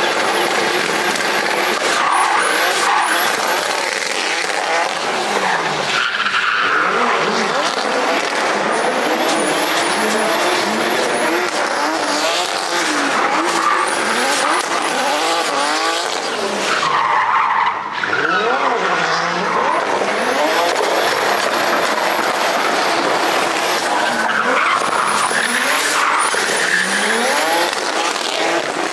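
Drift car engine revving hard up and down as the car slides sideways, with its rear tyres squealing and skidding as they spin up smoke. A few sharp cracks break through the engine noise.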